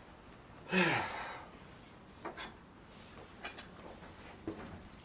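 A man's loud sighing exhale about a second in, his voice falling in pitch as the breath runs out, followed by a few faint clicks and taps.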